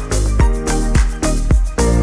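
Background music with a steady dance beat: a pulsing bass and drum with pitched notes over it.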